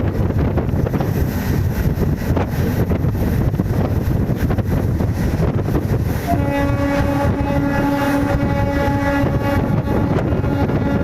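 Indian Railways MEMU electric train running with a heavy rumble and wind noise; about six seconds in, its horn sounds a long held blast, breaks off briefly some three seconds later, then sounds again.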